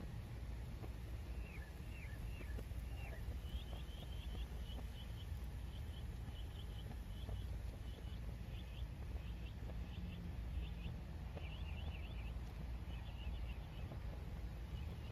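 Small birds chirping in short, quick series of high notes over a low, steady rumble.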